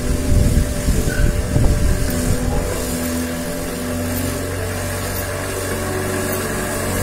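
Homemade electric lawn mower running and cutting dry grass as it is pushed, its motor humming. The sound is uneven and louder for the first two and a half seconds, then settles to a steady hum.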